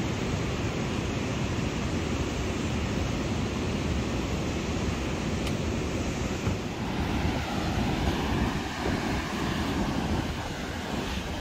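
Wind and surf on an open beach: a steady rushing noise, with wind buffeting the microphone.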